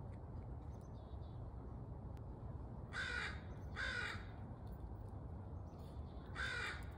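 Crow cawing three times: two caws about a second apart, then a third a couple of seconds later.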